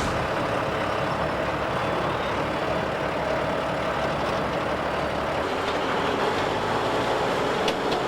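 Heavy construction machinery running steadily, with a faint steady tone in the first half and a few sharp clicks near the end.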